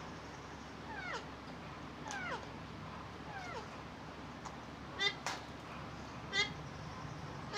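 Parrot calling: three falling cries about a second apart, then short harsh squawks about five seconds in, again a second and a half later and at the very end.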